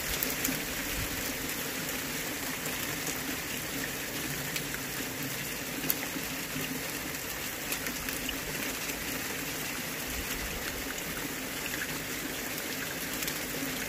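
Heavy rain mixed with hailstones falling on a garden: a steady hiss with many fine ticks of drops and stones striking, and one sharper tick about six seconds in.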